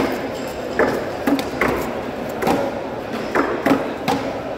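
Knife working through a large yellow trevally on a wooden chopping block: a series of irregular knocks, about seven in four seconds, over a steady background hum.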